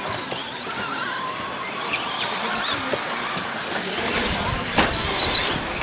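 1/10-scale 2WD short-course RC trucks racing, their electric motors whining and gliding up and down in pitch as they accelerate and slow, with a sharp knock about three-quarters of the way through.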